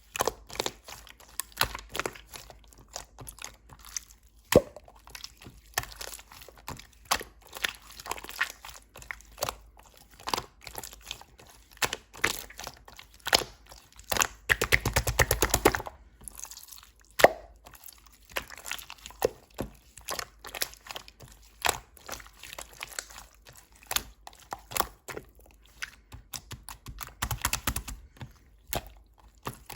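Slime being squished, pressed and stretched by hand, giving a long string of sticky clicks, pops and crackles. About halfway through there is a short burst of rapid crackling.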